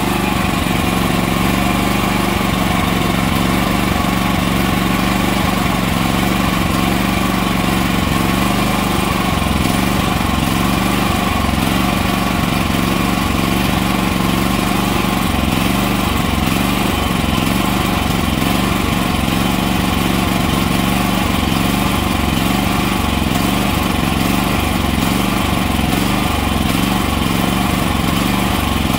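Predator 8750 inverter generator's single-cylinder gasoline engine running at a steady speed, running on the fuel left in its carburetor as the carburetor empties.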